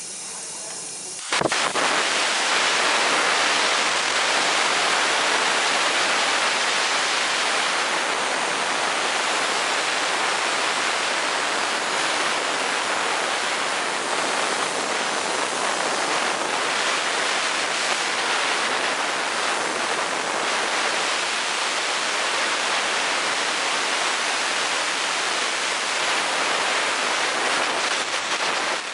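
Compressed air from a scuba cylinder blasting out of a ruptured medium-pressure regulator hose. It starts suddenly about a second in as a loud hiss, then holds steady.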